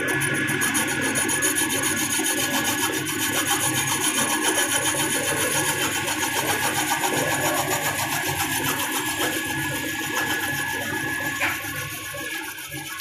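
Boring machine running, its cutter boring metal with a steady scraping, rasping sound and a steady high tone. The tone stops with a click about eleven and a half seconds in, and the sound then falls quieter.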